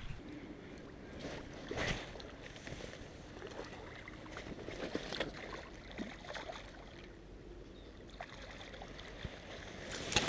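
Faint, uneven splashing of water and rustling of reeds, with scattered small clicks, as a hooked fish is played at the surface close to a reedy bank.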